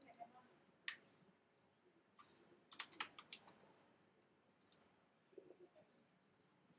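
Faint, scattered clicks of computer input at a desk over quiet room tone: single clicks about a second in and near two seconds, a quick cluster around three seconds, and a pair near five seconds.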